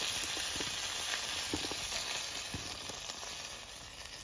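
Hot oil sizzling in a frying pan as stir-fried green beans and bell peppers are tipped out onto a plate, with a few light clicks and knocks. The sizzle slowly fades toward the end.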